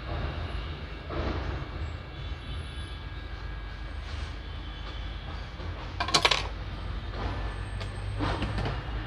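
A brief clatter of small hard objects about six seconds in, over a steady low hum.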